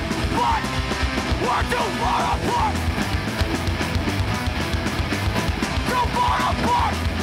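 Hardcore band playing live: electric guitars, bass guitar and drums, with a vocalist yelling lines just after the start, around two seconds in and near the end.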